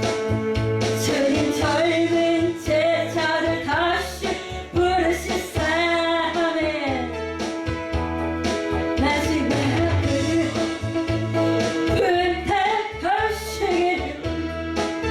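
Music: a Korean Christian worship song, a sung melody over steady instrumental accompaniment with guitar.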